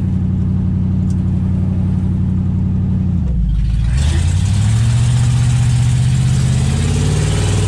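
A 1969 AMC Rebel's 290 V8 heard from inside the cabin, running at a steady note, then about three seconds in the pitch drops briefly before climbing steadily as the car accelerates. A hiss grows louder along with it.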